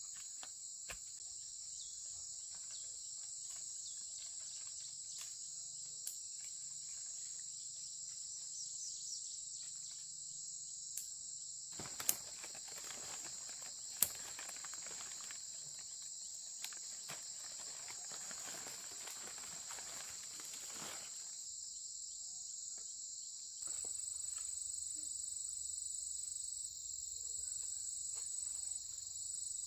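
Insects droning steadily at a high pitch, with a few sharp clicks and some rustling in the middle.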